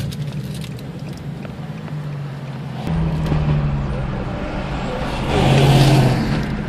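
Infiniti G35x sedan's V6 engine running as the car drives, heard from inside the cabin. It grows louder about three seconds in and again near the end.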